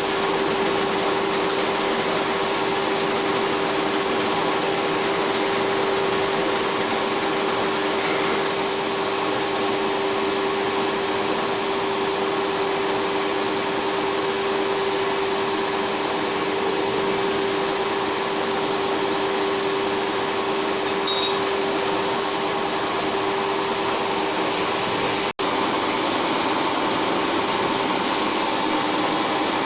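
1K62 screw-cutting lathe running steadily, a constant mechanical hum with a steady whine. The sound drops out for an instant near the end.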